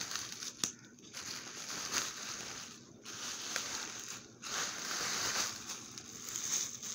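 Plastic bags and paper wrappers rustling and crinkling as they are handled, in uneven spells with short pauses about three and four seconds in.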